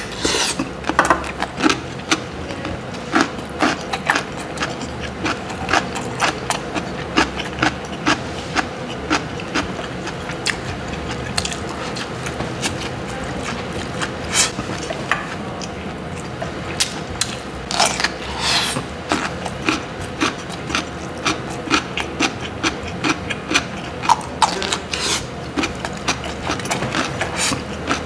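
Close-up chewing of crunchy chonggak (ponytail radish) kimchi with rice: a bite at the start, then many irregular wet crunches and mouth clicks, with a few louder crunches along the way. A steady low hum runs behind.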